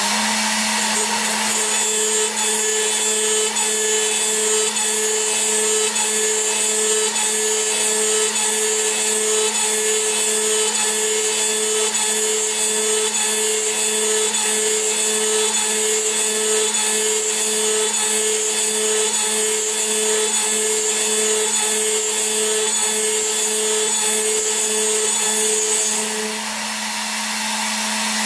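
CNC milling machine spindle running at about 13,000 RPM while a 3 mm end mill climb-mills dry aluminium at a fast feed of 2.8 metres per minute, giving a steady whine with high-pitched cutting hiss. The cut stops about two seconds before the end, leaving the spindle running on its own.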